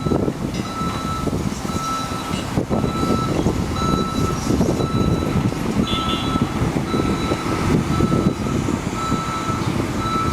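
Heavy machine's backup alarm beeping steadily, about once a second, over the steady low running of a diesel engine.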